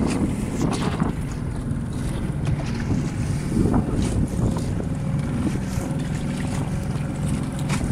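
Small boat under way on choppy sea: wind buffeting the microphone in a steady low rumble, with water splashing against the hull now and then.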